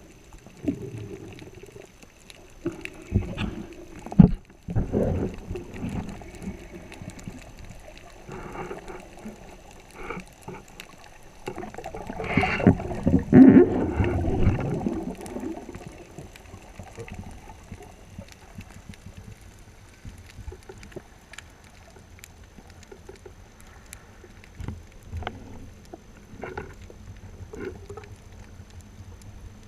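Water heard underwater on a freedive: irregular sloshing and knocks in the first few seconds, a loud rush of water and bubbles about 12 to 15 seconds in as the diver goes down, then a quiet underwater background with faint scattered clicks.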